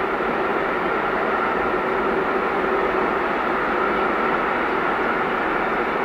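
A train passing close by, its wheels on the rails making a loud, steady rolling rush with a faint steady hum in it.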